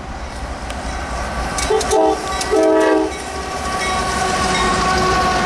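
Train horn sounding two short chords, the second a little longer, followed by the rising rush of the train running past on the rails.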